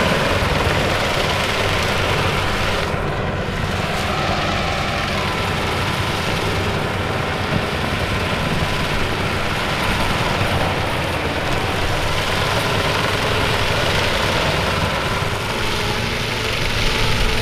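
Tractor engine running steadily under load while it pulls a FAE CH-45 strip-tillage implement, whose rotor churns soil and sugarcane trash, giving a dense, continuous mechanical noise.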